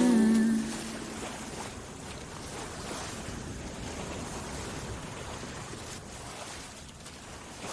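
The last held note of a soul song's vocal fades out just after the start, followed by a soft, steady wash of noise with no clear melody or beat.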